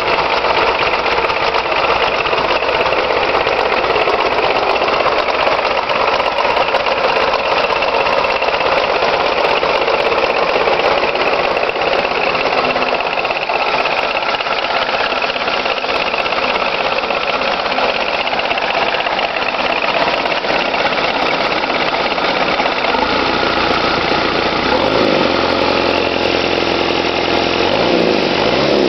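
Toyota 13B-T four-cylinder turbodiesel idling steadily with a diesel knock. Its low note shifts in the last few seconds.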